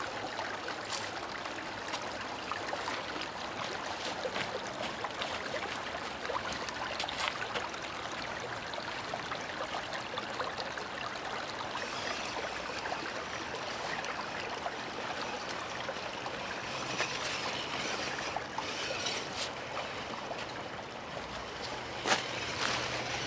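Steady rushing noise like a small stream running, with scattered clicks and crackles. About halfway through, a faint high whine comes in for several seconds.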